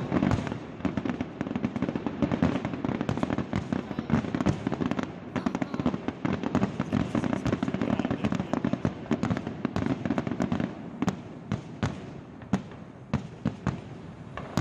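Fireworks going off: a dense, continuous run of bangs and crackling that thins after about ten seconds into separate, scattered bangs.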